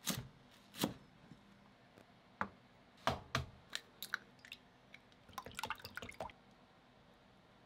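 Kitchen prep sounds: two knife chops through garlic chives onto a cutting board, then a few knocks as eggs are cracked and dropped into a glass bowl, then a quick run of light clicks as chopsticks beat the eggs against the glass bowl.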